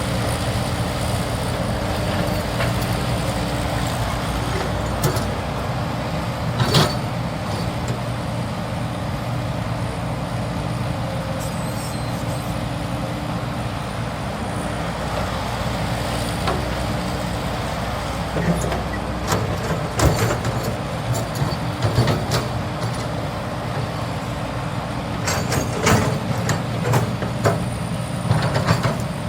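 Diesel engine of a Cat 320 GC hydraulic excavator running steadily with a steady hum, broken by sharp metallic clanks and knocks, one about a quarter of the way in and several more in the second half.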